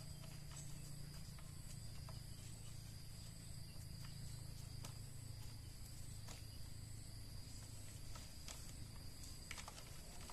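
Faint steady low hum and a thin high whine, with scattered light clicks.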